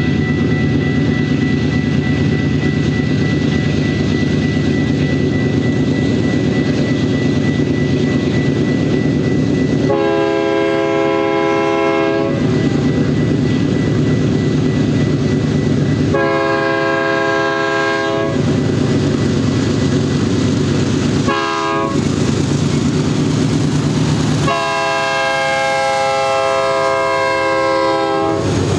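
BNSF diesel locomotives working hard at the head of a double-stack container train, their engines a steady loud drone. The multi-chime air horn sounds long, long, short, long, the grade-crossing signal: the first blast comes about ten seconds in and the last runs on to the end.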